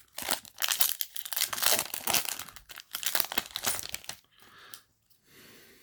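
Foil booster pack wrapper crinkling and tearing as a trading-card pack is opened by hand: dense crackling for about four seconds, then quieter rustling.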